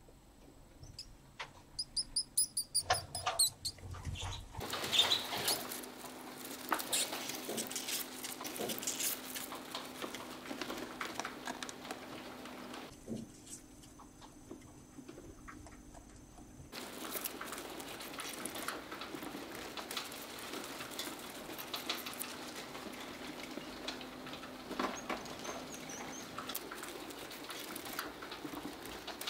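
Mice scrabbling and rustling through dry straw and paper nesting, with many small crackles and clicks. A quick run of about six high-pitched mouse squeaks comes in the first few seconds.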